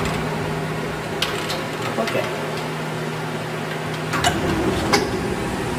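Haas Mini Mill CNC milling machine humming steadily, with a few faint clicks scattered through.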